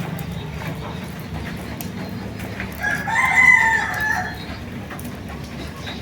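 A rooster crows once, about three seconds in, a single call lasting about a second and a half, over a steady low city hum.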